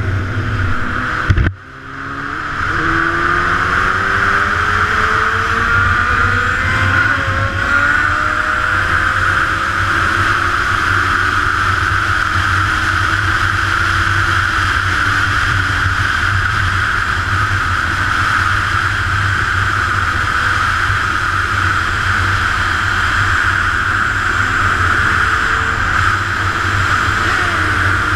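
Sport motorcycle at speed, with heavy wind noise on the microphone. The engine pitch climbs in several steps as it pulls through the gears, then settles into steady high-speed cruising. The sound drops out briefly about a second and a half in.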